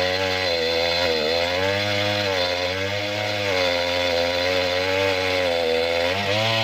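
Stihl two-stroke chainsaw cutting acacia wood at full throttle. Its engine pitch sags and recovers several times as the chain bites into the wood.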